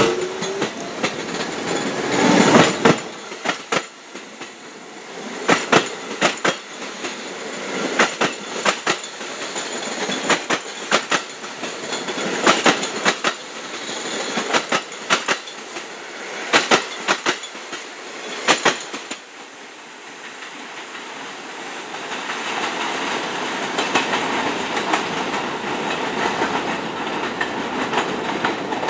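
New York City subway train running past close by, its wheels clacking in pairs over rail joints every couple of seconds as the cars go by. The clacking stops about 19 seconds in, and later a steady rumble builds as an R68 subway train approaches.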